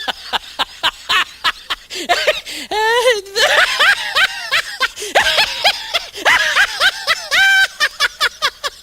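A man laughing hard and uncontrollably: rapid wheezing bursts of laughter, several a second, broken by long high-pitched squealing whoops.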